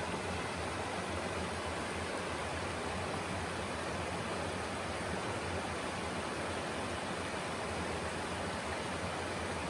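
Shallow creek rippling over flat rock ledges: a steady, even rush of running water.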